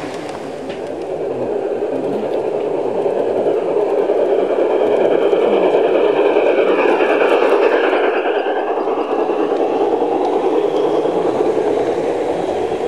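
G-scale garden model train running on its track: the locomotive's motor whirs and the wheels rumble and scrape on the rails, growing louder as the train passes close by about halfway through, with a brief whine sliding in pitch as it goes past, then easing off.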